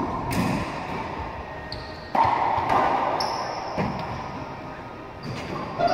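A racquetball rally: the ball is struck by racquets and cracks off the walls of the court several times, each hit ringing and echoing in the enclosed court. Sneakers squeak briefly on the hardwood floor between hits.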